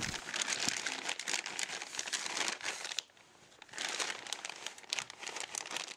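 Pink anti-static plastic bag crinkling and rustling as it is handled and pulled off a boxed instrument, with a brief silent pause about halfway through.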